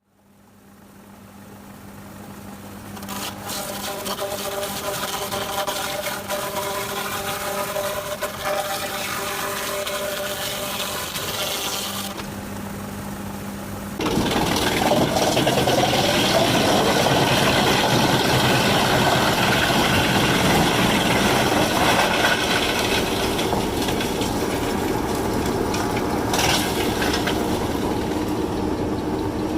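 Sawmill engine running steadily, then about fourteen seconds in the band saw blade bites into the log and a loud, rough sawing noise joins the engine and carries on.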